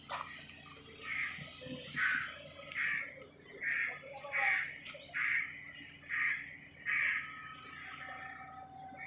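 A crow cawing about eight times in an even series, a bit under a second apart, then stopping about seven seconds in, over a faint steady low hum.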